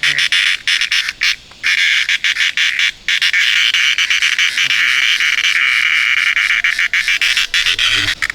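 Loud, steady high-pitched animal chorus, broken by frequent brief gaps.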